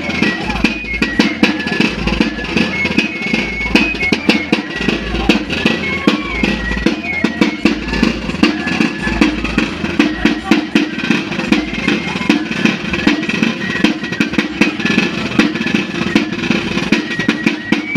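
Festive dance music of rapid, continuous drumming with a thin, high melody line wavering over it.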